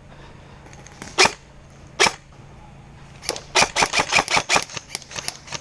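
Airsoft gun firing: two single shots about a second apart, then a rapid string of about a dozen shots over two seconds.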